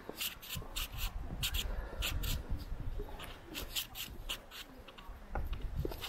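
Footsteps scuffing and crunching on a forest trail, several short gritty steps a second in an uneven rhythm, over a low rumble.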